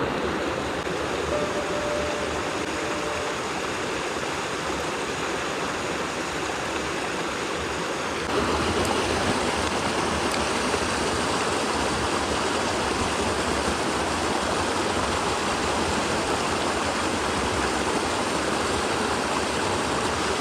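Mountain stream water rushing steadily. About eight seconds in, it becomes louder and brighter.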